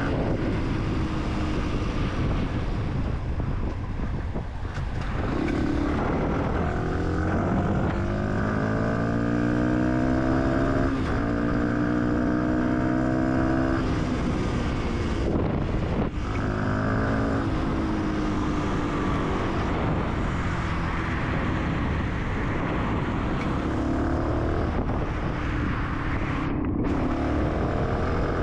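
Fantic 125 supermoto motorcycle engine accelerating through the gears: the pitch climbs in steps, each climb ending in a short drop at the shift, then the engine eases off and pulls again several times. Wind and road noise run under it.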